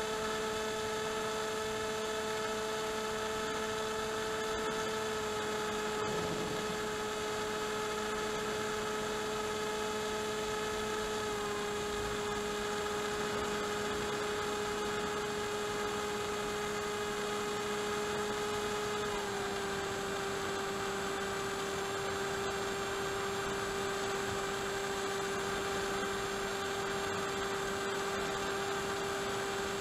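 Electric motor and propeller of an AXN Floater-Jet RC plane, heard from its onboard camera: a steady, even-pitched hum over a light hiss. Its pitch drops a little in steps, about five, eleven and nineteen seconds in.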